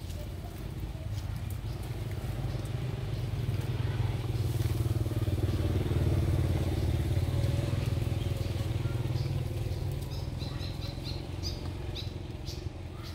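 Engine of a passing motor vehicle, growing louder to a peak about halfway through and then fading.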